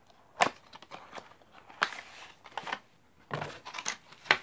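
A small cardboard box being unsealed and opened by hand: a paper seal strip torn off, then a series of sharp clicks, taps and rustles as the box is worked open.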